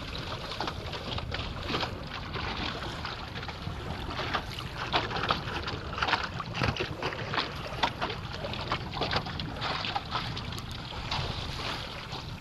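Water slapping and splashing against a sailboat's hull as it moves through choppy water, over steady wind rumble on the microphone. The splashes come irregularly and are loudest in the middle stretch.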